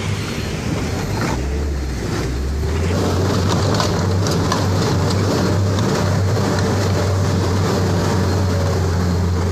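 Truck engine running with a steady low hum from inside the cab as the truck fords a shallow river, mixed with the rush of flowing water.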